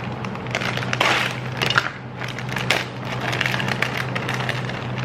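Plastic wrapper of a large bag of chocolates being torn open and crinkled, with irregular crackles and sharp ticks.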